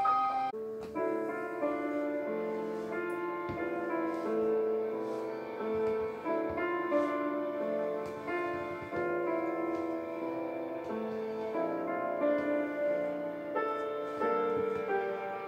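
Instrumental background music led by piano, with held notes and chords changing steadily.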